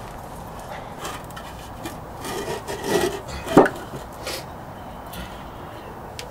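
A few knocks on a wood block held against a 2004 Ford Expedition's wheel hub assembly, struck to tap the rust-seized hub out of the rotor. The loudest, sharpest knock comes about three and a half seconds in.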